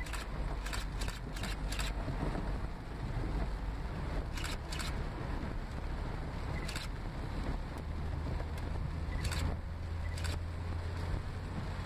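A car's engine running as it drives through deep floodwater in a heavy downpour: a steady low rumble under a continuous wash of water noise, with sharp taps now and then.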